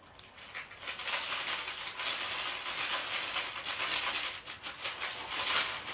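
Fizzing gas reaction inside a water-filled Wubble Bubble ball: a steady hiss full of small crackling pops that builds about a second in.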